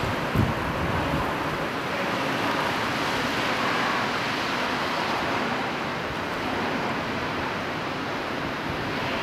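Steady rushing outdoor noise, with wind buffeting the microphone and a low thump about half a second in.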